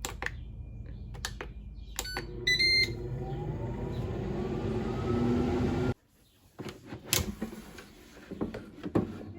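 Air fryer control panel beeping as it is set, then the air fryer's fan starting and running with a slowly rising whine as it spins up; the sound cuts off suddenly about six seconds in, followed by a few light clicks and knocks.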